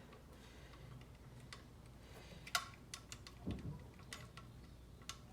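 Faint, scattered plastic clicks and taps of a small screwdriver prying at the locking clip of a door-panel wiring harness connector, which is stuck tight. The sharpest click comes about halfway through, followed by a duller knock.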